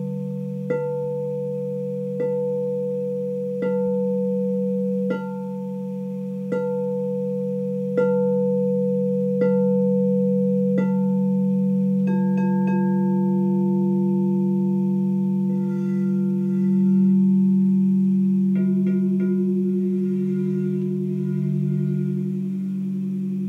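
Frosted quartz crystal singing bowls ringing: one bowl is struck with a mallet at an even pace, about once every second and a half, over a steady low hum. About halfway through the strikes switch to a lower-pitched bowl, hit a few times in quick succession, whose tone rings on, with another quick run of light strikes near the end.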